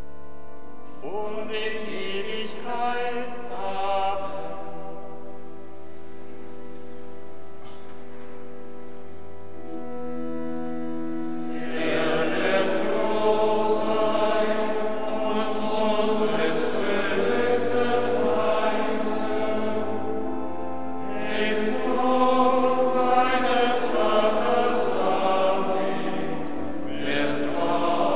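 A men's choir of monks singing a chant over a sustained organ accompaniment, with a deep bass note held underneath. The singing grows fuller and louder about twelve seconds in, with clear hissing consonants.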